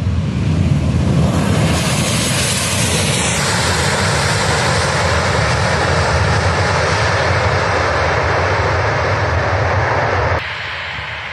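Boeing 737-700's CFM56-7B turbofan engines at takeoff thrust during the takeoff roll: a loud, steady jet roar that swells and brightens about two seconds in. Near the end the sound drops suddenly to a quieter rumble.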